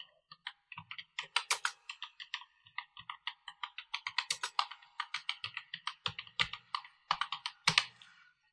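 Typing on a computer keyboard: a quick, uneven run of key clicks that stops shortly before the end.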